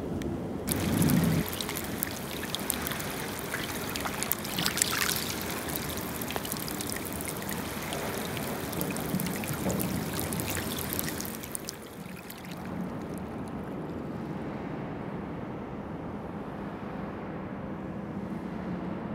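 River water trickling and lapping over wet pebbles and shingle at the water's edge, a steady wash with fine crackling. About twelve seconds in it gives way to a low steady rumble.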